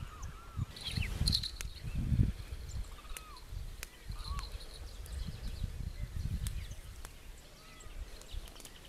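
Birds calling, short arching chirps repeated over and over, over low rumbling noise that swells about a second in.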